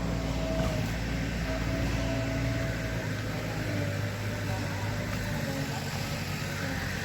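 An engine running steadily with a low hum; a deeper rumble underneath drops away about three seconds in.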